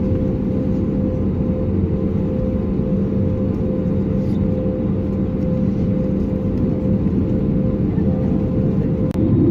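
Steady cabin noise of an Airbus A320neo with its engines running: a constant hum and rumble heard from a window seat, with a brief dip shortly before the end.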